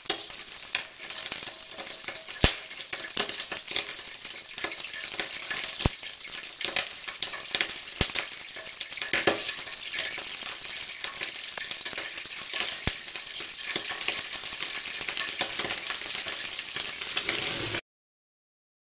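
Oil with a little water in it sizzling and crackling in a wok over high heat as the water spits and boils off, with a sharp pop every few seconds. It cuts off suddenly just before the end.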